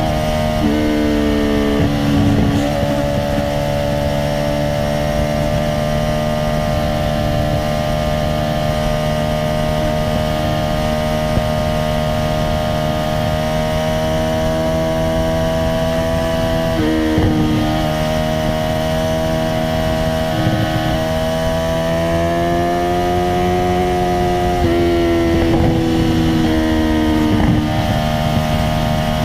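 Honda CBR650R's inline-four engine through an Akrapovic titanium exhaust with no dB killer, running loud at steady cruising revs. Its note drifts slightly up and down and steps in pitch at several quick gear changes.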